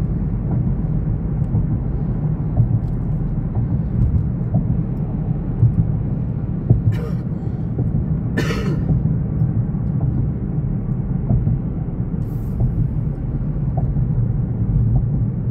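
Steady low rumble of a car driving along, engine and road noise heard inside the cabin, with two brief hisses near the middle.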